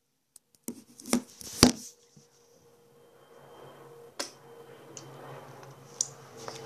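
Close handling noise from the recording device: after a moment of silence come two sharp knocks, then faint rustling with a few scattered clicks.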